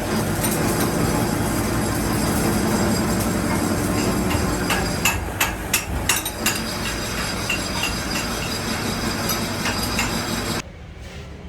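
A run of sharp metallic taps, like a hammer striking metal during work on a hydraulic jack, cluster about five to six seconds in over a steady mechanical rumble. The rumble cuts off abruptly near the end.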